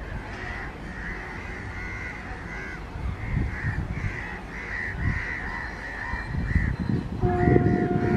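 Crows cawing over and over, above the low rumble of an approaching electric-hauled passenger train that grows louder towards the end. A steady tone comes in about seven seconds in and holds.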